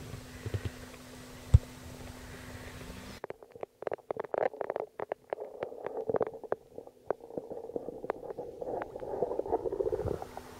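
Muffled underwater sound of a hooked trout thrashing just below the surface: a dense run of water clicks and bubbling heard through an underwater camera housing, starting about three seconds in and stopping near the end. Before and after it, open-air ambience with a low steady hum, and one sharp knock about a second and a half in.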